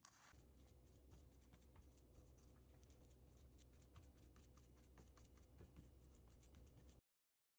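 Near silence: faint, quick light ticking, several ticks a second, over a low steady hum, cutting off suddenly about seven seconds in.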